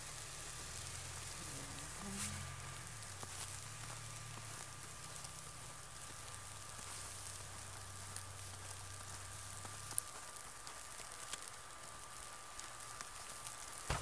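Faint patter of falling snow on a nylon jacket and the microphone, a steady hiss scattered with light ticks. A low rumble underneath stops about ten seconds in, right at one sharp click.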